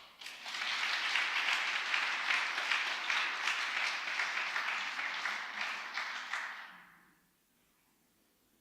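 Church congregation applauding, dying away about seven seconds in.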